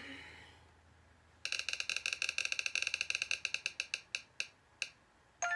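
Spinning prize-wheel app on an iPad ticking rapidly as the wheel spins, the ticks slowing and spreading out as it comes to rest, then a chime near the end as it stops on the winner's name.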